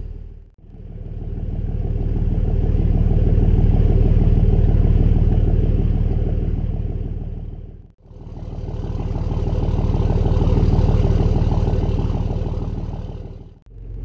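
Boat engine running steadily under way, in two stretches that each swell up and fade away, with brief dips to near silence about half a second in, just before 8 seconds and near the end.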